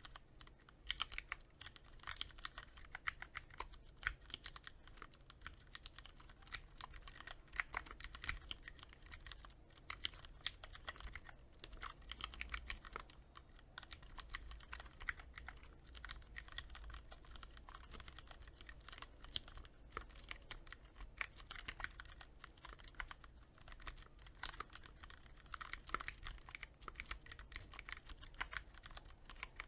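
Cherry MX Board 3.0S mechanical keyboard with Cherry MX Red linear switches, lightly lubed with Krytox 105, being typed on continuously: a dense, steady stream of key clicks with no pauses.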